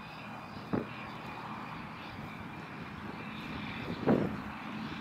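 Steady low drone like a distant aircraft, with two brief thuds, one about a second in and a louder one about four seconds in.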